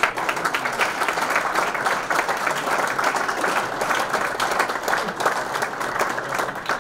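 Audience applauding, many hands clapping at once, starting abruptly.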